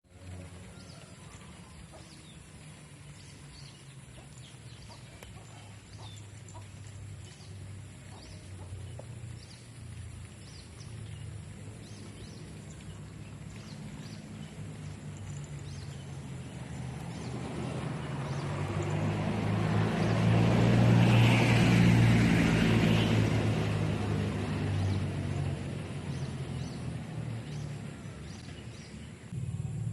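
Chickens clucking softly in short scattered calls over a steady low hum. A passing vehicle's noise swells up and fades out again, loudest about two-thirds of the way through.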